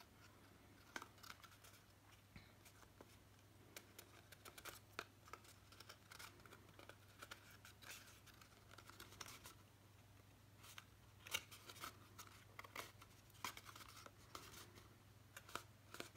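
Faint, scattered crackles and taps of cardstock being handled, as the glued side tabs of a paper box are pressed into place.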